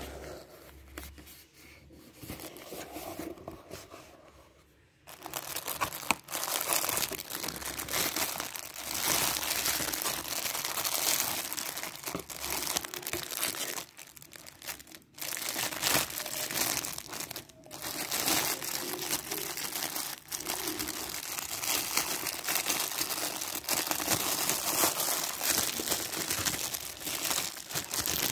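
Clear plastic packaging bag crinkling and crackling as it is handled and pulled about. It is soft for the first few seconds, then turns dense and loud about five seconds in, with a couple of short pauses.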